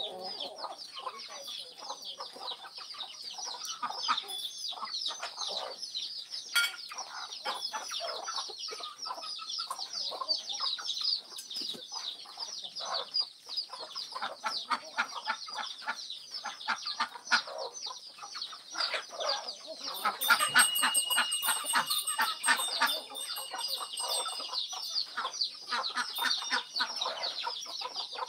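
A flock of chickens clucking and calling as they feed, over a constant dense chatter of short, high, falling chirps.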